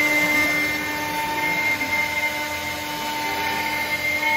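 Haase CNC router's spindle running at 18,000 rpm, its 90° chamfer cutter milling a 1 mm chamfer along the contour of a Senna hardwood board: a steady whine over the machining noise, a little louder near the end.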